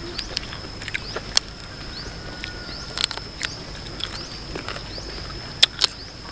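Eating king crab by hand: scattered sharp clicks and smacks of crab shell being pulled apart and of chewing, the loudest two close together near the end. A steady high-pitched tone runs underneath.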